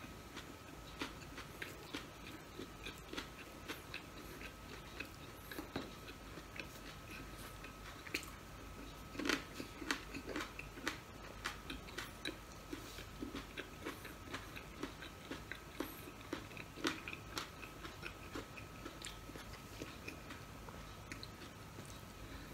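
Close-miked chewing and biting of a crispy breaded chicken nugget: wet mouth sounds with many short crunches and clicks, thickest in the middle. A faint steady high whine runs underneath.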